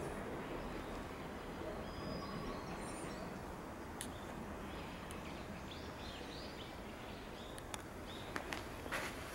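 Outdoor garden ambience: a steady low background rumble with small birds chirping faintly several times, and a few sharp ticks near the end.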